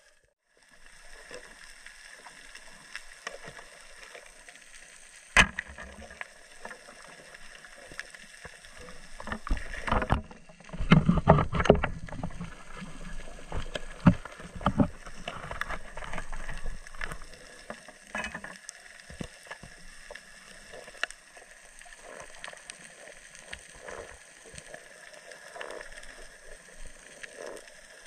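Underwater sound picked up by a diver's camera during night spearfishing: a steady hiss of water with scattered sharp clicks. A single sharp click comes about five seconds in, and there is a burst of loud knocking and rattling from about ten to twelve seconds in, with a few more knocks after it.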